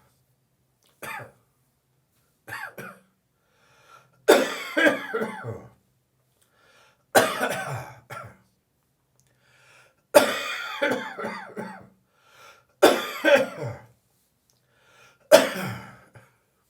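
A person's dry, throaty cough coming in about seven separate fits with quiet breaths between them: two short ones first, then longer fits of several coughs each. It is a morning cough that the uploader puts down to drinking beer the evening before.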